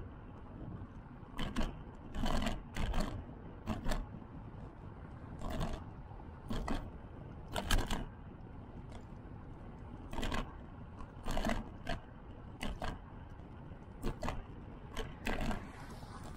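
Riding noise picked up by a bike-mounted action camera: a steady low rumble of tyres and air, broken by a dozen or so irregular short bursts of scraping noise, each under half a second.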